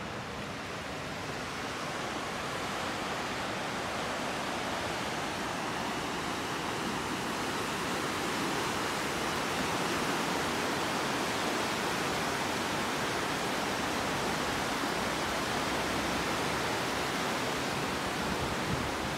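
Rushing whitewater of a large, fast river heard from a footbridge above it: a steady, even roar that grows louder over the first several seconds and then holds.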